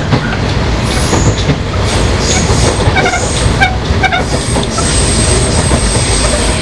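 Sotetsu 5000 series electric train (lead motor car with a Toyo Denki VVVF inverter and right-angle cardan drive bogies) running between stations, with a steady loud rumble of motors, wheels and rails. Brief wheel squeals come through a few seconds in.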